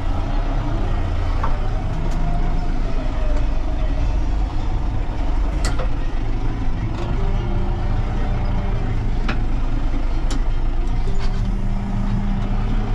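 Tractor engine running steadily, heard from inside the cab while the tractor reverses and lines up with a cultivator and seed drill hitched behind. A few sharp clicks sound over the engine's hum.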